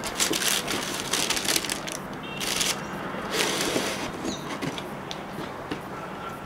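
Tissue paper rustling and a cardboard shoe box being handled: a run of rustles and scrapes as the box lid is closed, with a few light knocks.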